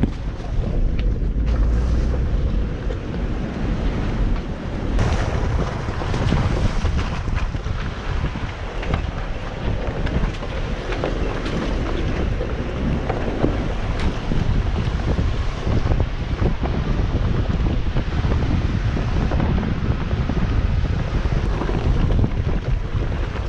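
Off-road 4x4 driving slowly over a rocky trail: low engine and drivetrain rumble, heavy wind buffeting on the microphone, and scattered knocks from the rocks underneath.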